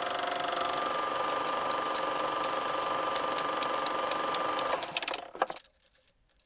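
Super 8 film mechanism running: a steady motor whir with a fast ticking, which winds down and stops with a click about five seconds in, leaving faint ticks.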